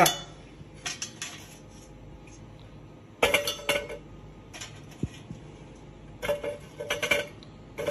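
Clinks and clanks of metal as lit charcoal is spread evenly under a tabletop charcoal grill pan: sharp knocks in several small clusters, some with a brief metallic ring.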